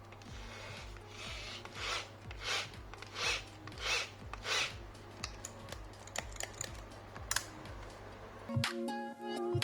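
About six rhythmic rubbing or scraping strokes, roughly one every half second, with small clicks of parts being handled over a low steady hum during electric drill repair work. Music starts near the end.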